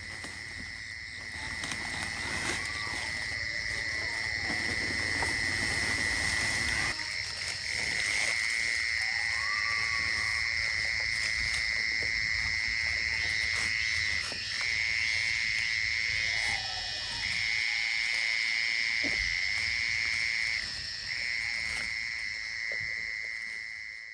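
A chorus of calling frogs: a continuous high trill that drops out briefly three times in the second half, with a few separate lower calls over it.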